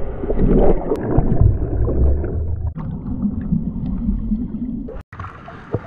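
Ocean wave breaking and washing over a GoPro held in the surf: a loud, rumbling rush of water. About three seconds in it turns to a duller, muffled underwater wash, and it cuts out briefly near the end.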